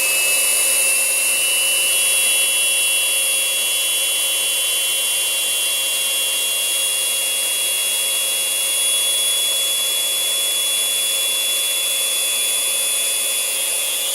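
Rowenta Compact Power Cyclonic bagless vacuum cleaner running with a steady high-pitched whistle over the motor's whine. An extra whistle tone joins about two seconds in. The whistle comes from a worn HEPA filter that has lost its airflow. Near the end the vacuum is switched off and the whine falls away.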